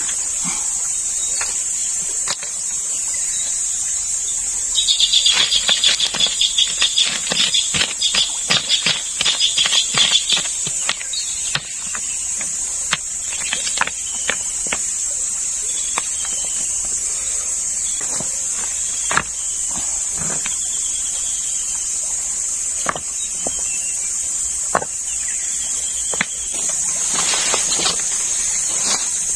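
Steady high-pitched chorus of insects, with a louder, rapidly pulsing call from about five to ten seconds in. Scattered clicks and knocks of river stones being handled run through it.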